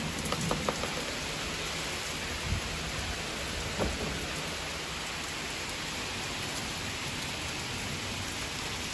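Steady rain falling, an even hiss of drops on the yard and trees, with a couple of small knocks in the first few seconds.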